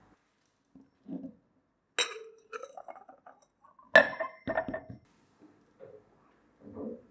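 Old brass cup clinking against a glass tumbler as it is handled and set down inside it: a few sharp clinks, the loudest about four seconds in, followed by fainter knocks.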